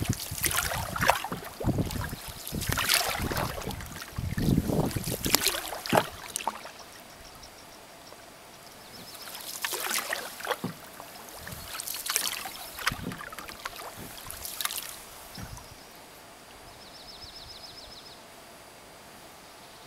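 Canoe paddle strokes in calm lake water: the single blade dips and pulls with splashes and drips about once a second for the first six seconds, then softer, more spaced swishes. A faint high trill of quick notes comes near the end.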